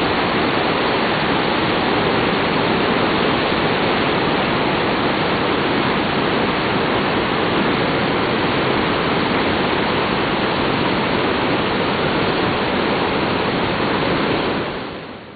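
Merced River white-water rapids rushing over boulders: a loud, steady rush of water that fades out near the end.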